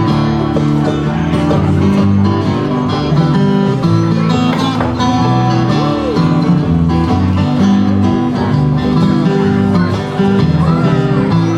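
Instrumental break by an acoustic string band playing a folk song in a country-bluegrass style: guitars strumming and picking a melody over an upright-style bass line, with banjo picking in the mix.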